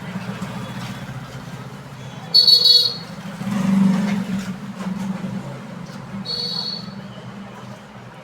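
Traffic with two short vehicle horn honks, the louder about two and a half seconds in and the other about six and a half seconds in, over a steady low rumble that swells around four seconds in.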